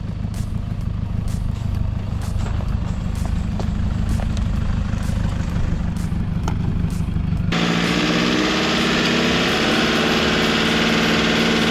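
A 2011 Toyota Hilux with a 3-litre turbo diesel crawls in first gear up a rough dirt track: a low rumble with scattered knocks. About seven and a half seconds in, the sound changes abruptly to a steady engine drone with a hiss over it.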